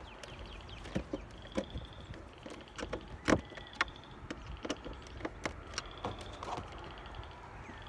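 Scattered clicks and knocks of a screwdriver and plastic door trim as screws are driven back into a car's interior door panel, the loudest knock about three seconds in.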